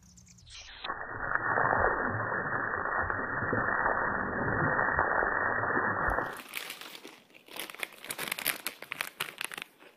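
A garden hose jet spraying and splashing as a dog catches the water in its mouth: a steady rushing hiss for about five seconds that stops abruptly. After that comes irregular dry crinkling and clicking.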